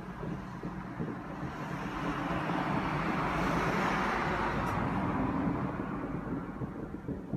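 A road vehicle passing by, its noise swelling to a peak about halfway through and then fading, over a steady low rumble.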